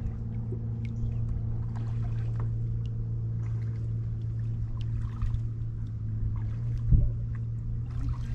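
Water dripping and lapping around a kayak, with faint small splashes, over a steady low hum. A short low thump comes about seven seconds in.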